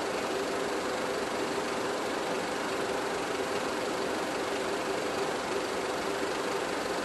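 Steady hiss with a constant low hum and nothing else: the noise of an old silent-film transfer.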